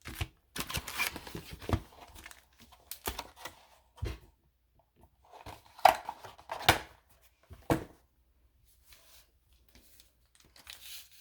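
Trading-card packaging being torn open and crinkled by hand: irregular tearing and rustling with a few sharper snaps, dying away about eight seconds in.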